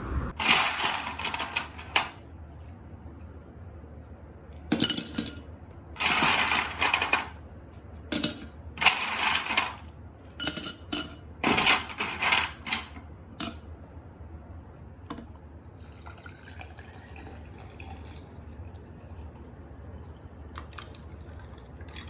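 Water running and splashing in repeated short bursts of about a second each, with light clinks.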